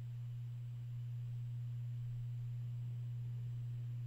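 Steady low electrical hum: one constant low tone with no change, and a faint high whine above it.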